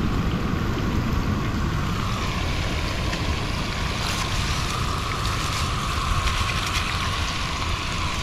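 Wind buffeting the microphone and ocean surf, over fish frying in a pan of oil on a portable gas burner. The noise stays steady throughout.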